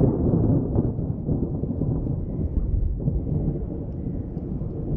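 Thunder rolling from a nearby thunderstorm: a loud, low rumble that is at its strongest as it begins and rolls on, slowly easing off.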